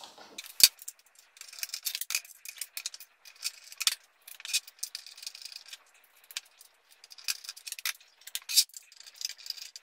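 Irregular clicks, taps and light rattling of a metal mount plate and plastic case-handle assembly being handled and tipped up on a table, with one sharp click just after the start.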